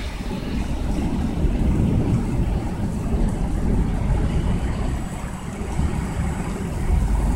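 Thunder rumbling low and rolling, rising and falling in strength, over the hiss of heavy rain.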